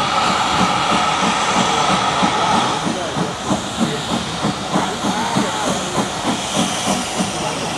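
Steam locomotive: a steady hiss of escaping steam, then from about three seconds in a regular chuffing of exhaust beats, about three a second, as the engine works.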